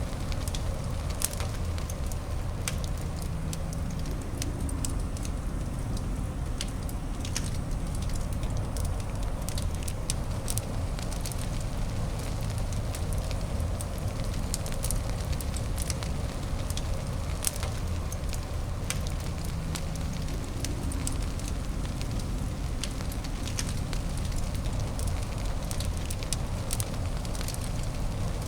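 Wood fire crackling in a fireplace: many sharp little pops and snaps scattered irregularly over a steady low rumble and hiss of burning.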